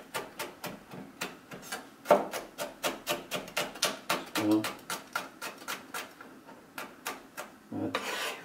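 Chef's knife slicing a red chili pepper thinly on a plastic cutting board: quick, even knife taps on the board, about four a second.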